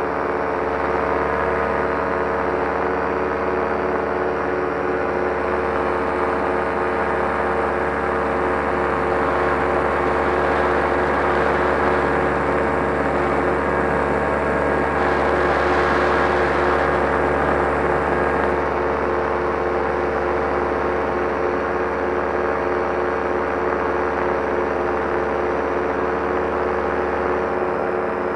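Solo 210 single-cylinder two-stroke paramotor engine and propeller running steadily in flight, swelling slightly for a few seconds about halfway through.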